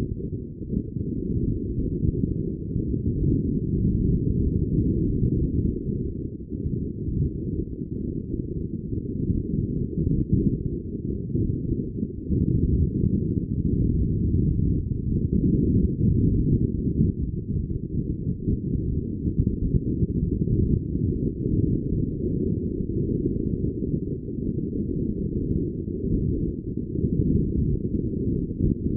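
Wind buffeting the microphone aboard a sailing yacht: a low, muffled rumble that swells and eases unevenly, with no higher sounds over it.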